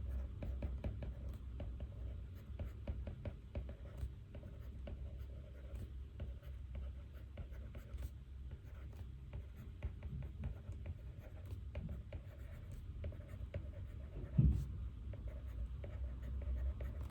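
Pen writing on paper: continuous fine scratching and small taps of strokes. A single low thump about three quarters of the way through is the loudest sound.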